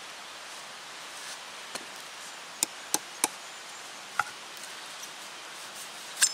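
Wooden baton knocking on the spine of a thin-bladed Ontario Old Hickory knife while batoning a stick: about five sharp knocks, three in quick succession in the middle and the loudest near the end. The blade has jammed on a knot in the wood and meets real resistance.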